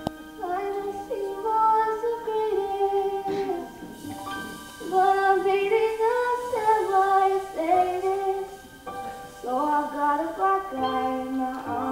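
A female voice singing a solo melody in a musical theatre number, with held and gliding notes over live instrumental accompaniment.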